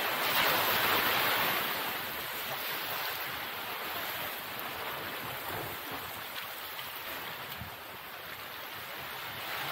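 Ocean surf washing in over a rocky shore: a loud surge of water about the first two seconds in, then a steady wash and fizz of receding foam.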